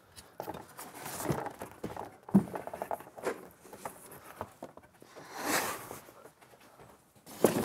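Cardboard packaging being handled and moved about: scattered knocks, scrapes and rustles, with a sharp knock about two seconds in and a longer swishing scrape about five and a half seconds in.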